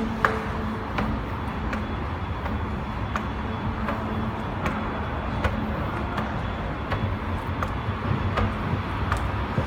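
Subway-station escalator running: a steady low mechanical rumble with frequent light clicks.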